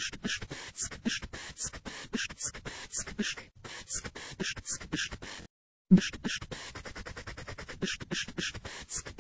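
Google Translate's German text-to-speech voice reading out strings of beatbox syllables ("pv", "zk", "bschk"), giving a quick, even run of clicks, puffs and hissing hits that sounds like beatboxing. It stops briefly a little past halfway and starts again with a loud hit.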